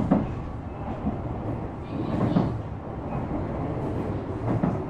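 Running noise heard inside a Shizuoka Railway A3000 series electric train between stations: a steady rumble of wheels on rail, with three heavier knocks at the start, about halfway and near the end.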